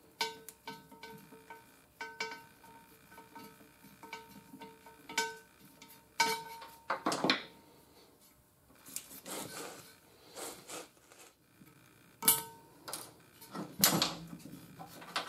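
Light metallic clicks, taps and scrapes of an old TPMS sensor and a small valve tool being worked out of an aluminium wheel rim's valve hole and set down on a bench. Scattered small clicks, with a few louder knocks about halfway through and again near the end.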